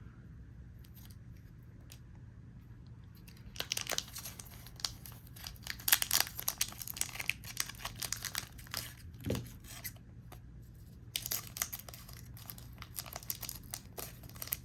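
Foil trading-card booster pack wrapper being crinkled and torn open by hand, in two spells of rustling with a short pause about ten seconds in.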